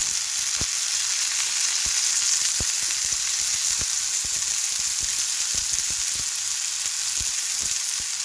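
Homemade chicken longganisa sausages frying in hot coconut oil in a pan: a steady sizzling hiss with scattered pops and crackles of spattering oil.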